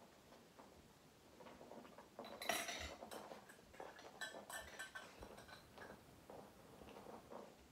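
Dog nosing and rolling an Omega Paw Tricky Treat Ball, with kibble rattling and clinking inside the ball: a scatter of light clicks, loudest about two and a half seconds in, then lighter rattles.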